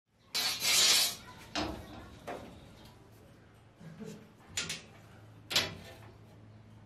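Steel flat bar and a try square scraping and knocking on a metal workbench: one long scrape about half a second in, then five short knocks and scrapes as the bar is marked out.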